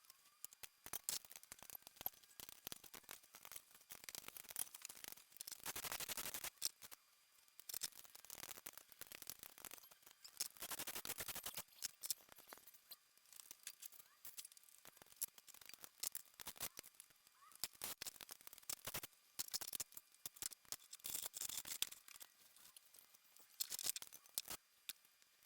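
Faint clicks and clinks from hand tools and loose engine parts, with several short scraping stretches, during the teardown of a Honda K24 engine.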